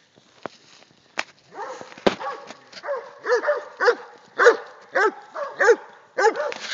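Cur hunting dog barking over and over, a steady run of loud barks about two a second that starts about a second and a half in, typical of a hog dog barking at a hog.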